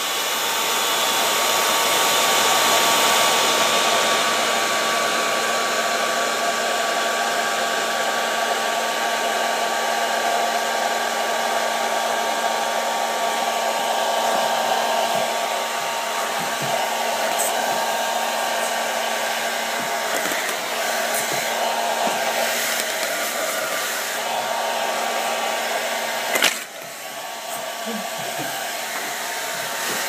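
Hand-held hair dryer running continuously, a steady whir with a faint hum in it. A sharp knock near the end, after which the dryer runs a little quieter.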